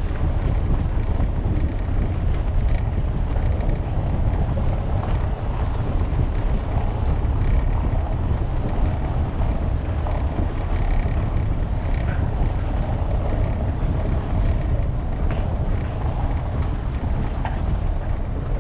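A car driving over cobblestone paving: a steady low rumble from the tyres, with wind buffeting the camera's microphone and a few faint ticks along the way.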